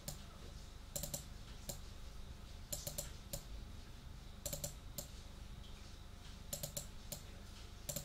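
Computer keyboard keys pressed in short, irregular bursts of two or three sharp clicks, with gaps of about a second between bursts.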